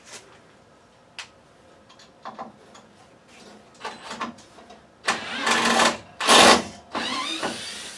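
Cordless drill/driver run in three short bursts, the middle one loudest, backing a long screw out of a wooden heater mount, after a few light clicks and taps.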